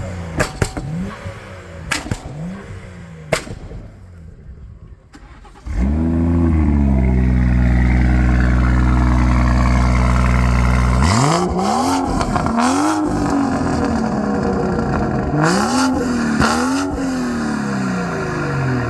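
A tuned BMW of about 580 to 600 hp, fitted with a performance exhaust, starts with a sudden loud flare about six seconds in and settles to a steady fast idle. From about halfway, it is revved four times, each rev rising and falling back. A few sharp clicks come before the start.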